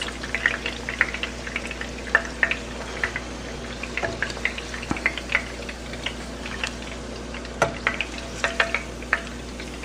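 Breaded chicken tenders frying in shallow hot oil: a steady sizzle dotted with frequent sharp crackles and pops.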